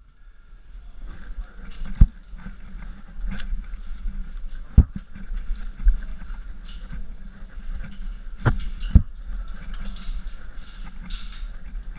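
Caver crawling through a tight rock passage: clothing and gear rustling and scraping, with several sharp knocks of the equipment against the rock.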